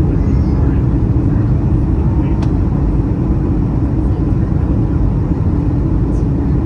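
Steady cabin noise inside an Airbus A321 airliner on approach: the low, even roar of the engines and airflow heard from a window seat over the wing.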